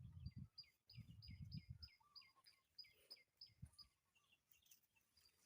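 Faint small-bird chirping: a rapid series of short, high calls, about three a second, each dropping in pitch, that stops about four seconds in, with a few lower calls mixed in. Faint low rumbles in the first two seconds.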